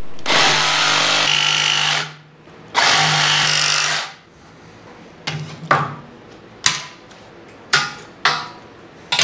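Cordless jigsaw cutting a straight line through plywood in two runs, about two seconds and then just over a second. After that come several short knocks and clicks as the saw is set down and the clamps are handled.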